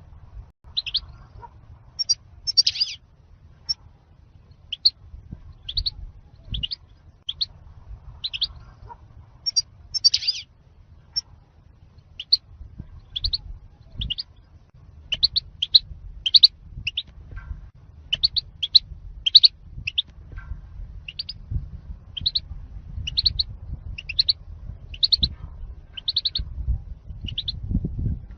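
European goldfinch singing its 'zalzal' song: a steady run of short, high chirping notes, about one or two a second, over a faint low rumble.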